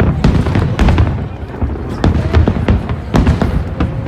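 Fireworks bursting in quick succession: many sharp bangs and crackles over a continuous low rumble.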